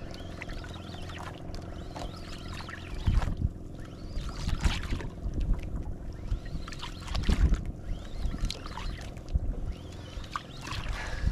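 On a small outrigger boat at sea, a steady low hum runs under wind buffeting the microphone and water slapping against the hull, in loud rumbling surges about three seconds in, again near four and a half seconds and near seven and a half seconds.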